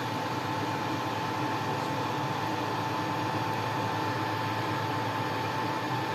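Steady whirring hum of an electric fan or blower with a thin constant whine, unchanging throughout.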